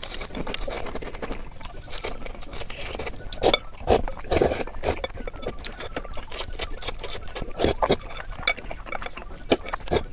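Close-miked eating sounds: a person chewing and making wet mouth noises, with many sharp clicks and a few louder bursts about three and a half to four and a half seconds in and again near eight seconds.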